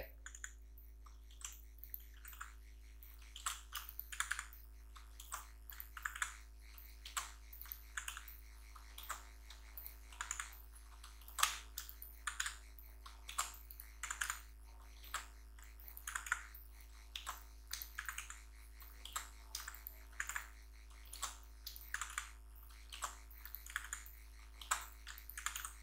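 Faint computer keyboard key presses in a steady repeating pattern, a few clicks roughly every second: the Ctrl+Shift+D shortcut to duplicate a slide, then arrow-key taps to nudge an object.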